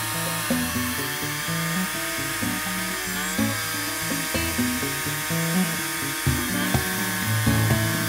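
Background music with a moving bass line, laid over the steady high whine of a TimberKing 2020 portable band sawmill running, its pitch dipping briefly twice.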